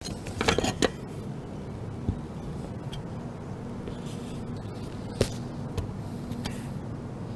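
Steady outdoor rumble with a few sharp clicks and taps as tools are handled against an aluminium solar-panel mounting bracket: a cluster in the first second, one sharper click about five seconds in, and lighter ones after it.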